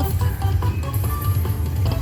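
Electronic game music and short chime tones from a Lightning Link slot machine during its free spins, over a steady low bass.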